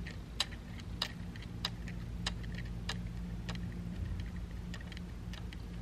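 Regular sharp ticking, a little under two ticks a second, over a steady low hum.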